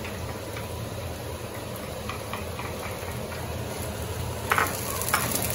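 Onion and tomato frying in oil in a pan as they are stirred, a steady sizzle with light clicks, and two sharper clicks near the end.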